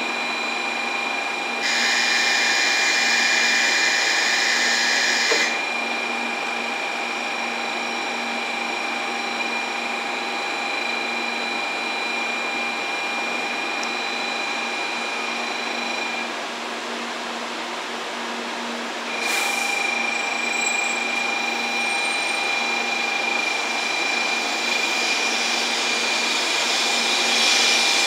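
JR West 700-series Rail Star shinkansen at the platform: a steady electrical whine and hum from the train's equipment while it stands. About two seconds in, a steady electronic tone sounds for nearly four seconds. Near the end, rising noise as the train starts to pull away.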